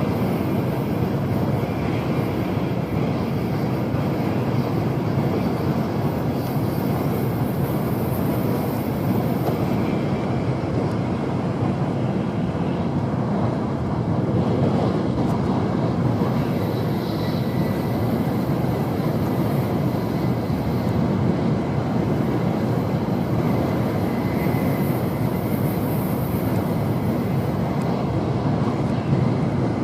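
Steady running noise inside a Tokaido Shinkansen car travelling at speed: an even rumble of wheels and rushing air, without any clickety-clack rhythm.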